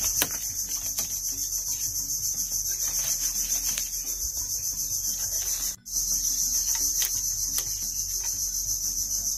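Steady high-pitched chorus of insects buzzing, with a few faint clicks and rubs underneath. It cuts out completely for a moment about six seconds in.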